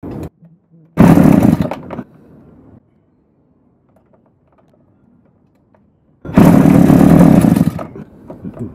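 Small two-stroke engine being pull-started: it fires and runs for about a second, falls silent, then fires again for about a second and a half a few seconds later before dying away.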